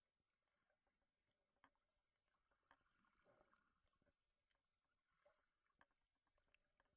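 Near silence: faint underwater noise recorded from inside a camera housing, with scattered faint clicks.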